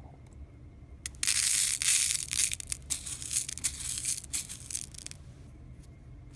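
Small plastic beads rattling and rustling against a glass bowl as fingers stir them together, starting about a second in and lasting about four seconds.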